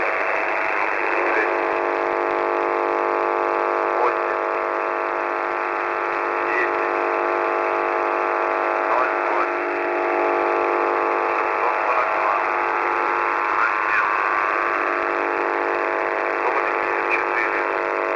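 Shortwave radio reception of The Pip's 6922 kHz frequency through a receiver's narrow voice-band audio: a steady buzzing drone made of many even tones over static hiss, with faint short chirps now and then.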